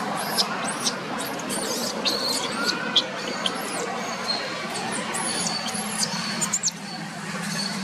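Newborn long-tailed macaque squealing in distress while its mother grips and pulls at it: a run of short, very high-pitched cries, each rising and falling, about two a second.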